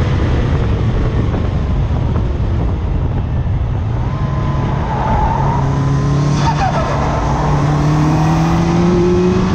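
Car engine heard onboard at track speed over heavy road and wind noise. From about halfway through, the engine note climbs steadily as the car accelerates.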